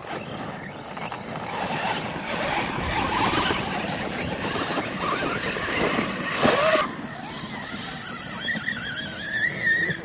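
Electric RC monster truck climbing a loose dirt hill: motor whine under full throttle, with tyres spinning and spraying dirt. Near the end a whine rises in pitch.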